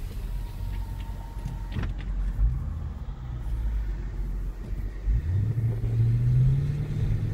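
WK2 Jeep Grand Cherokee's 5.7 Hemi V8 with the resonators cut out of the exhaust, heard from inside the cabin: a low, steady exhaust rumble, then about five seconds in the engine accelerates and the drone grows louder and rises in pitch.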